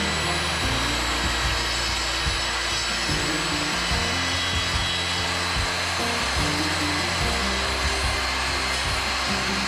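Table saw running steadily as it rips a cedar 1x4 lengthwise to 3½ inches wide, with background music over it.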